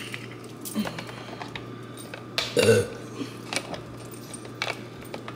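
Small clicks and taps of the plastic screw cap on a cardboard cream carton being handled and twisted shut. About two and a half seconds in comes one short, throaty vocal sound, the loudest thing here.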